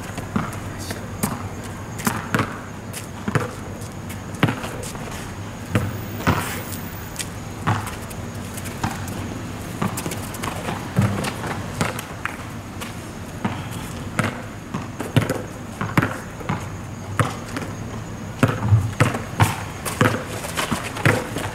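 Basketball dribbled and bouncing on an outdoor asphalt court, sharp irregular bounces among players' running footsteps during pickup play.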